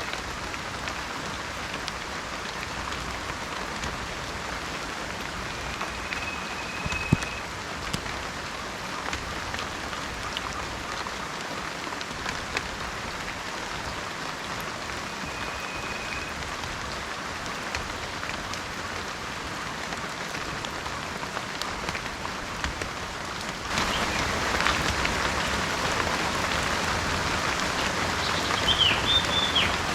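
Steady rainfall in a tropical rainforest, with a few short whistled bird notes and a chirp near the end. The rain gets suddenly louder about three-quarters of the way through.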